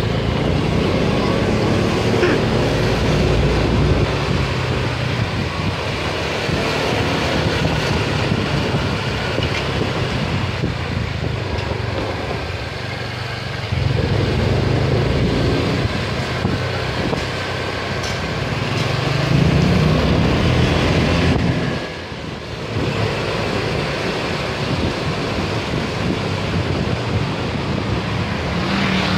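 Small motorcycle taxi engine running under a pillion rider, with wind and road noise; the engine swells and eases off several times with the throttle and drops briefly about three-quarters of the way through.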